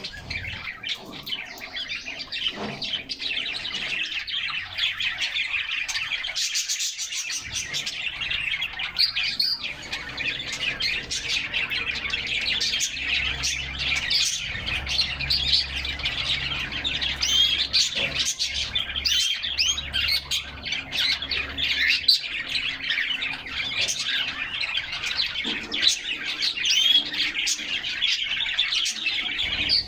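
Canaries singing without a break, a dense, fast warbling song of trills and chirps.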